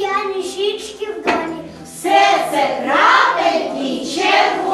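A young child's voice speaking, with the words loudest in the second half.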